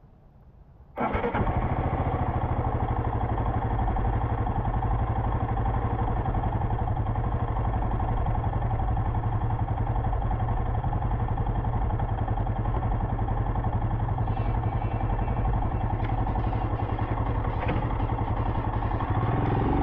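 Royal Enfield Himalayan's single-cylinder engine idling steadily, coming in suddenly about a second in. Music starts right at the end.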